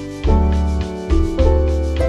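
Background music: sustained notes over a deep bass line, changing about a quarter second in and again a few times.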